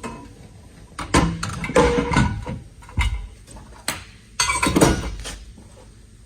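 Metal clinks and knocks from a removable anchor roller and its quick-release pins being handled, several sharp clanks spread across a few seconds with short pauses between.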